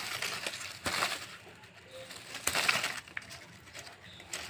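Dry turmeric leaf stalks crackling and crunching as they are cut through with a small knife, in bursts about a second in and again about two and a half seconds in.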